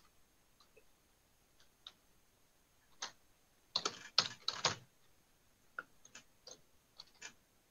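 Keystrokes on a computer keyboard as code is typed. There are sparse, faint clicks, with a quick run of several keys about four seconds in.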